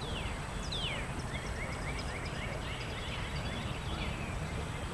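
Birds calling: a couple of descending whistled notes near the start, then a fast run of short repeated notes, about eight a second, over a steady low rumble of outdoor background noise.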